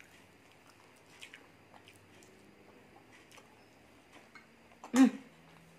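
Quiet eating at a table: a few faint clicks of forks against plastic takeaway containers and soft chewing. About five seconds in, one of the eaters makes a short vocal sound, the loudest sound here.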